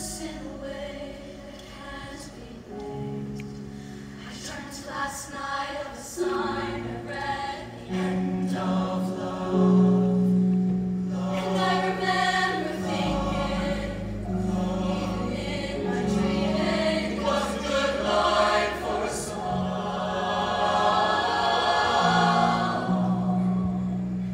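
High school show choir singing in parts over sustained low instrumental notes that change in steps, getting louder about six to eight seconds in.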